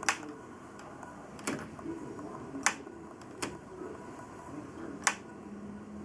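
A wall toggle light switch being flipped on and off: five sharp clicks, unevenly spaced.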